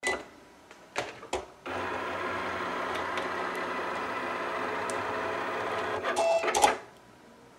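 Cricut Explore cutting machine's carriage and roller motors running in a steady whir as it draws with the Foil Quill heat pen, after a couple of sharp clicks. A short louder clatter near the end, then the motors stop as the machine is paused.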